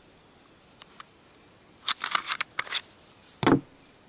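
Metal-on-polymer clicks and rattles of a Glock 17 pistol being taken apart, its slide coming off the frame: several quick clicks about two seconds in, then a single thud.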